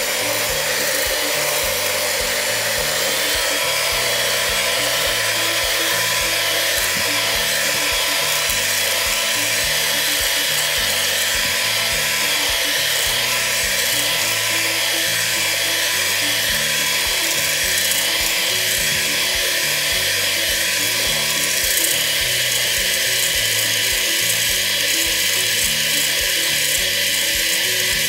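Electric hand mixer with a whisk attachment running steadily in a stainless steel bowl, whipping cream that is not yet at stiff peaks. Its whine rises slightly in pitch over the first few seconds.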